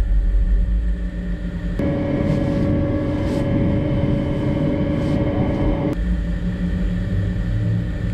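De-icing vehicle's engine and fluid pump running steadily as de-icing fluid is sprayed from the boom nozzle onto an airliner's wing. About two seconds in the sound changes abruptly to a steadier hum with two clear tones, heard from inside the operator's cab. It switches back to the outside rumble near six seconds.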